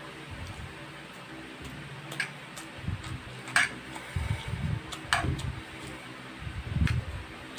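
Close-miked eating sounds: chewing mouthfuls of pancit canton instant noodles and fried egg, with a few sharp clicks of a metal fork against the frying pan.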